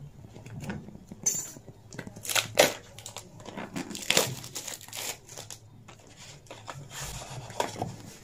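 Clear plastic film crinkling and tearing as it is peeled off a small cardboard product box, in a string of sharp, irregular crackles. Later the cardboard box rustles and slides as it is opened.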